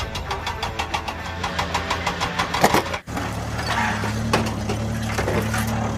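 Engine sound of RC construction machines running steadily with an even rhythm. It breaks off suddenly about three seconds in, then resumes as a steady low hum.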